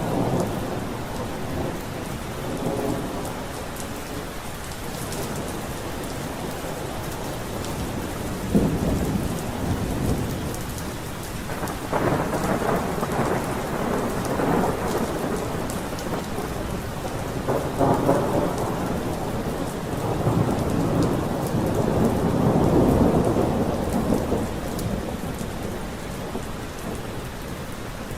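Thunderstorm: steady rain with thunder rumbling several times, starting sharply about eight seconds in, with a long roll loudest about three quarters of the way through.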